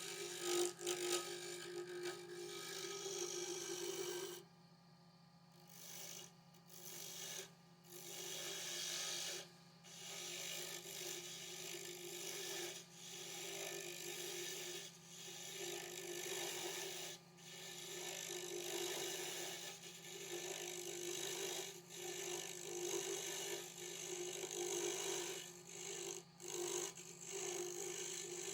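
A tool rubbing and scraping against a spinning weeping willow pen blank on a wood lathe, with a steady lathe hum underneath. The rasping comes in strokes with short breaks, and one longer pause comes about five seconds in.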